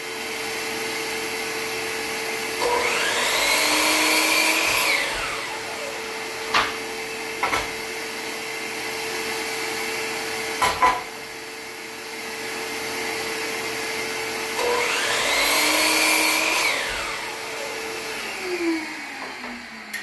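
DeWalt miter saw motor spinning up, cutting and winding down twice, about 3 and 15 seconds in, each a rising then falling whine, over the steady hum of a shop vacuum that winds down in pitch near the end. A few sharp knocks of wooden boards being handled come between the cuts.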